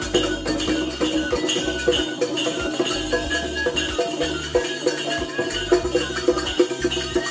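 Husori Bihu music: an Assamese dhol drum beaten in a steady, quick rhythm, with jingling metal percussion ringing over it.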